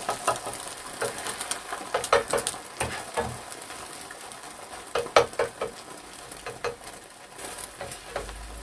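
Beaten egg sizzling in a nonstick frying pan, with chopsticks and then a slotted turner stirring, tapping and scraping against the pan in clusters of clicks. The loudest knock comes about five seconds in.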